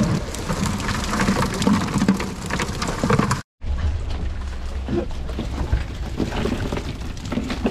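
A cast net full of Pacific herring being emptied: water streaming and dripping off the mesh while the fish spill out and flap in a dense, rain-like patter. The sound drops out briefly about three and a half seconds in, then the same patter goes on.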